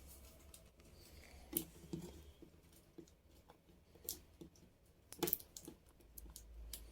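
Faint, scattered clicks and light knocks of handling, several in a few seconds, over a low hum.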